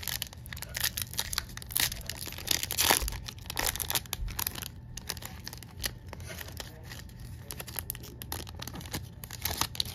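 Foil-lined Topps baseball card pack being torn open by hand: a run of ripping and crinkling of the wrapper, loudest about three seconds in, then thinning to lighter crinkles as the wrapper is pulled back.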